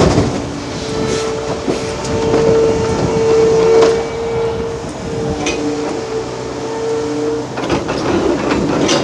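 Liebherr R 930 excavator working: its engine runs steadily under a held whine, with a lower second tone joining about five seconds in. Scattered clanks, and a short burst of rushing noise near the end.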